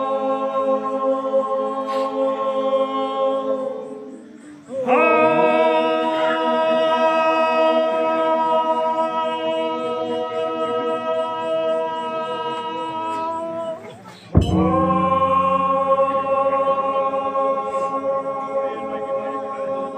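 A group of voices singing a cappella in long, held chords. The singing breaks briefly twice, about four and a half seconds and about fourteen seconds in, and there is a short sharp click at the second break.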